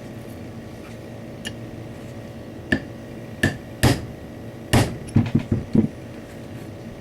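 Hammer striking a punch to drift a Glock 26's Truglo sight sideways, to the left, in its slot: four solid metallic strikes spaced under a second apart, then a quick run of four lighter taps.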